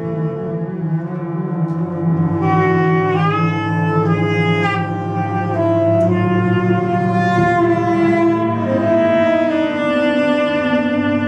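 Live ensemble music: long held notes from bowed cello and double bass over a steady low drone, joined about two seconds in by higher held notes from saxophone, some of them sliding in pitch.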